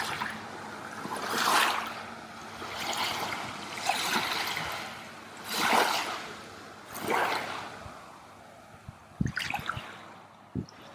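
Water splashing in repeated surges, about one every second and a half, weakening over the last few seconds, with two short low thumps near the end.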